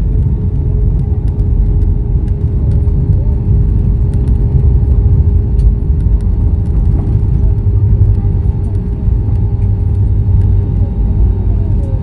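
Jet airliner rolling along the runway after touchdown, heard inside the cabin: a loud, steady low rumble with a faint steady hum over it.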